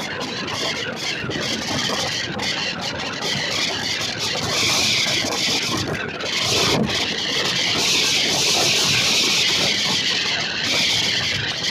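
Passenger train running: a steady rushing noise of the coach and its wheels on the track, getting a little louder about four seconds in.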